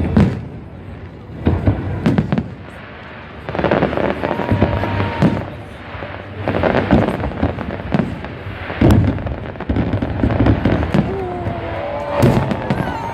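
Salute fireworks bursting overhead: a string of loud booms one to three seconds apart, with crackling between them. People's voices come in near the end.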